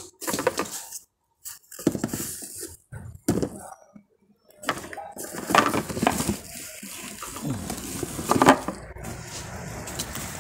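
Plastic packaging and bubble wrap rustling and crinkling as it is handled, with clicks and knocks of hollow plastic pickleballs and paddles in a cardboard box. The sound comes in irregular bursts broken by a few brief silences.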